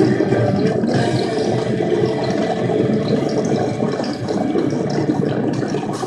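Steady rush of wind buffeting the microphone on a moving motorcycle, with a 2002 Honda CB750's inline-four engine running underneath.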